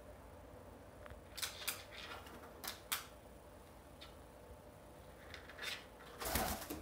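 A handful of short, sharp clicks and taps spread a second or so apart, followed by a brief rustling noise near the end.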